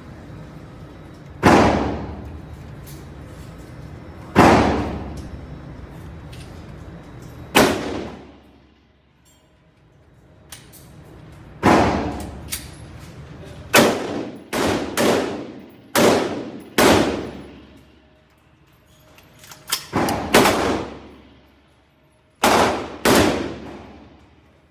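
AR-15 semi-automatic rifle firing about a dozen single shots, each a sharp crack with a short echoing tail. The first three are slow, about three seconds apart, and the later shots come quicker, some under a second apart.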